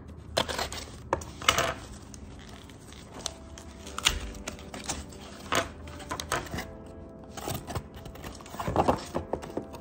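Scissors slicing through packing tape on a cardboard shipping box, then the cardboard flaps being worked and pulled open: a run of irregular sharp clicks, scrapes and rustles.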